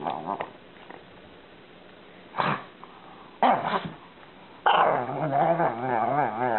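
A pug giving a couple of short barks, then starting a long howl about two-thirds of the way through, its pitch wavering up and down.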